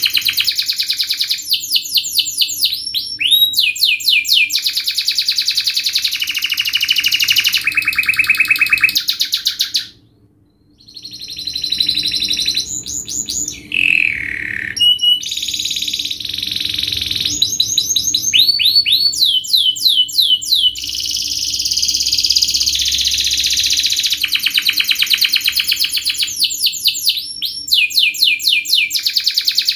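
Domestic canary singing a long, fast song of rapid rolling trills and quick repeated notes, with a brief pause about ten seconds in.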